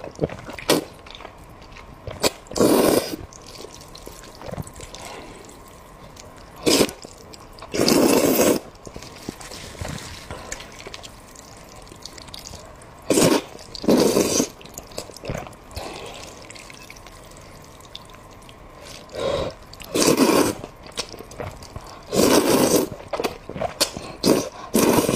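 Wet eating sounds of a person eating braised pork and curry with rice: bites, chewing and slurping in short irregular bursts, about ten of them, each under a second.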